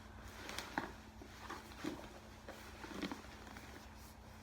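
Faint, scattered taps and rustles of hands handling and picking at a plastic-wrapped phone box, over a faint steady hum.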